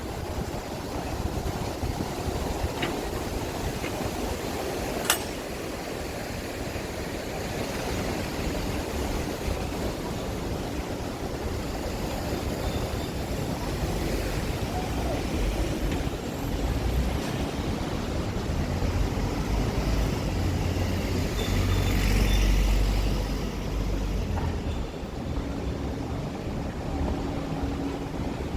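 Busy city street ambience: a steady hum of traffic with passers-by, a single sharp click about five seconds in, and a louder low rumble swelling and fading a little after twenty seconds as a vehicle passes.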